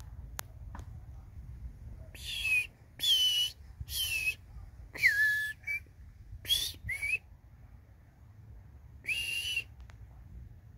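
A run of short, breathy whistles, about seven in quick succession and then one more after a pause, most sliding down in pitch and a couple sliding up.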